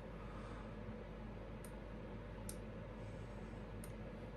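Three faint, sharp clicks of a computer pointing device's button, over a steady low hum of room tone.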